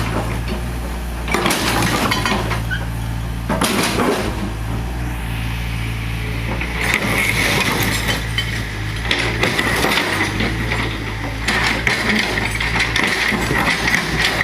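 Doosan 55W excavator's engine running steadily while broken bricks and rubble clatter and crash in repeated bursts as the machine works the debris. About halfway through, a high steady whine joins the engine.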